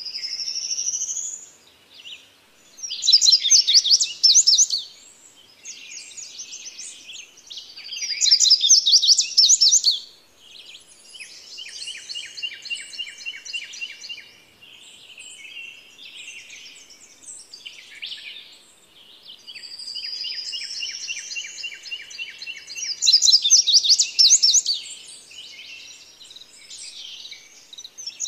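Songbird singing a varied, high-pitched song: loud phrases of rapid notes, separated by softer buzzy trills and a few rising slurred whistles.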